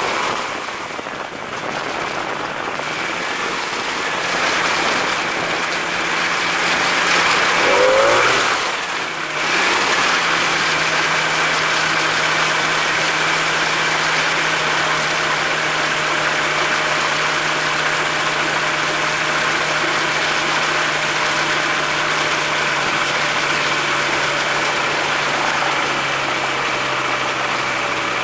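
X'Air microlight's engine and propeller running on the ground during a propeller RPM test. Its tone shifts a little lower about nine to ten seconds in, then holds steady.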